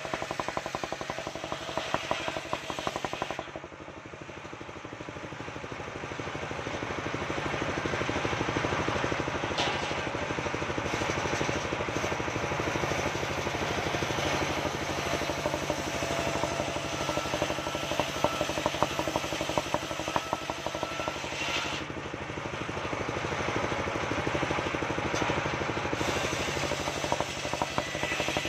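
Engine of a truck-mounted circular sawmill running and driving a large circular saw blade that rips waru wood into boards, with fast, even engine pulsing under the sawing noise. The sound drops a few seconds in and builds again over the next few seconds.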